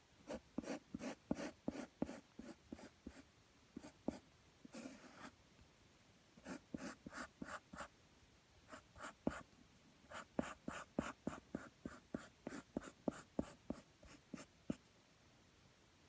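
Yellow graphite pencil sketching on paper: runs of short scratchy strokes, about three or four a second, broken by two pauses, with one longer stroke about five seconds in.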